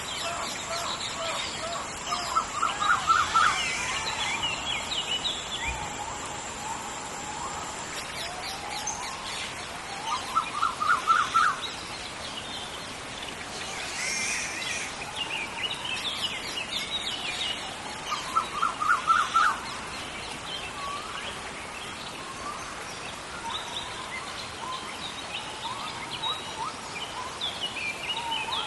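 Rainforest ambience: a steady hiss of rain with birds calling throughout. One bird repeats a quick run of rising notes three times, about eight seconds apart, and a high steady tone stops about eight seconds in.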